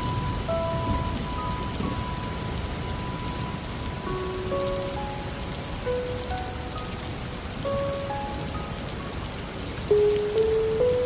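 Steady rain falling, with soft music over it: sparse, slow, held single notes, and a few louder notes near the end.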